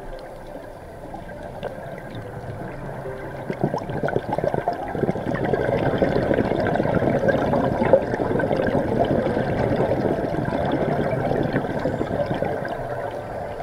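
Underwater bubbling of a scuba diver's exhaled air, swelling about three seconds in and loudest through the middle before easing off.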